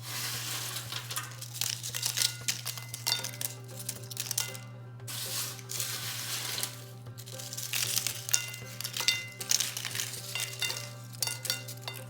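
Background music over irregular crackling, clicks and clinks of food and utensils on a serving dish as the fatteh is plated.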